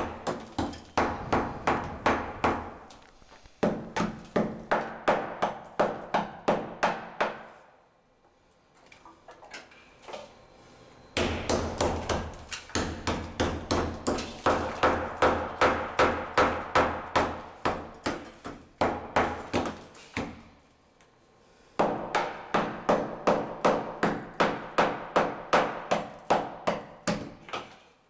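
Hand hammer blows striking a tiled light-concrete wall, about three a second, in three bouts with short pauses between, chipping out cement and tile.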